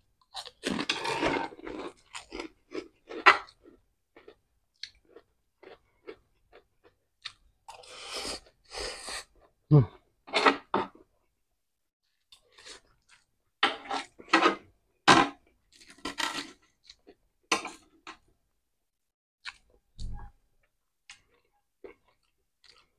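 A person chewing and crunching crisp food in irregular bursts with short pauses.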